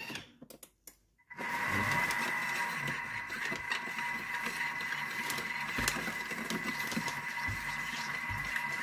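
A Thermomix food processor starts its blade at speed 2 after a few dial clicks, then runs steadily with a high, even squeal. The squeal comes from the sugar in the bowl, which squeaks under the stirring.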